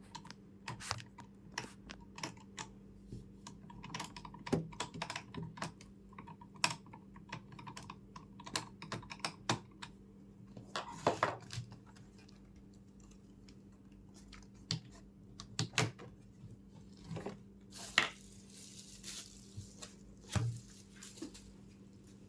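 Irregular light clicks and taps of small hard parts being handled, over a faint steady hum.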